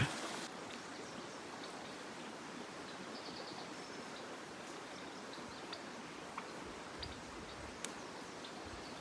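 Steady rushing of a mountain creek, with a few faint high chirps and small ticks over it.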